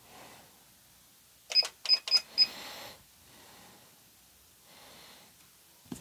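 Four quick electronic beeps from the Singer Heavy Duty 6800C sewing machine's control panel, one for each keypad button pressed while programming a stitch sequence, coming about a quarter second apart about a second and a half in.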